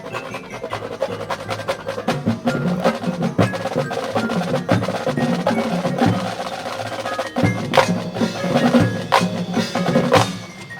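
Marching band playing a percussion-heavy passage: rapid snare and drum strikes and rolls with mallet percussion over sustained wind chords.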